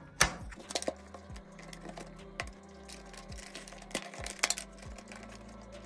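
Plastic clicks and snaps as the clips of a Honda Civic instrument cluster's plastic housing are pressed and pried apart by hand. The sharpest clicks come just after the start and again around four seconds in.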